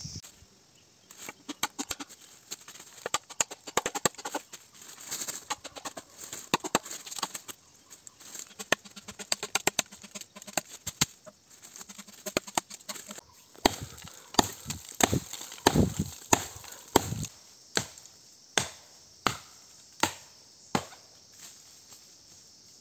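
A machete chopping a bamboo stalk: a long series of sharp blows. Light, quick cuts in the first half give way to heavier, evenly spaced strikes about two a second over the second half.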